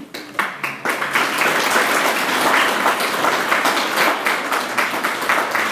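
Audience applauding; the clapping builds just after the start and keeps on steadily.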